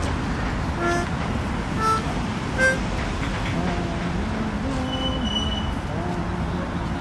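Steady city traffic noise with three short high toots about a second apart, then a man's voice softly humming a few low, wavering notes.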